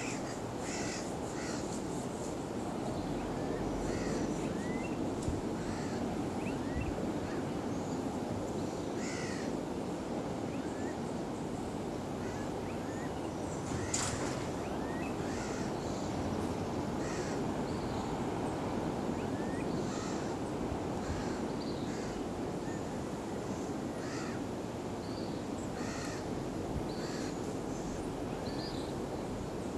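Short, high chirping animal calls repeating every second or so over a steady low rushing background, with one sharp click about halfway through.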